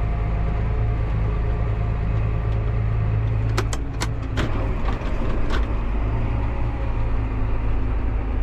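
John Deere 8300 tractor's six-cylinder diesel engine running steadily under field load, a low drone heard from inside the cab, with a few sharp clicks a little past halfway through.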